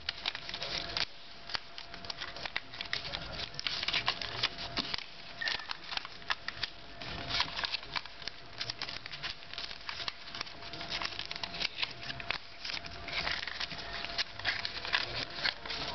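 Paper being folded and creased by hand: irregular crinkling and rustling with many sharp crackles.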